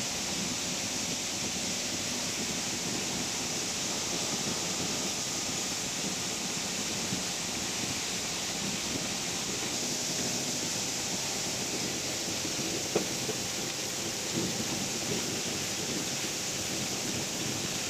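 Sorted PET plastic flakes pouring from a sorting machine's outlet chute into a woven bulk bag: a steady hiss of flakes landing on the pile and the bag fabric, with one sharp tick about thirteen seconds in.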